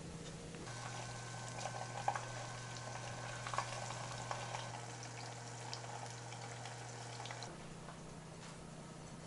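Rice-paper-wrapped cheese rolls deep-frying in a small pot of oil: a crackling sizzle with scattered sharp pops as the cheese bursts through the wrappers, over a steady low hum. It starts about a second in and cuts off sharply near the end.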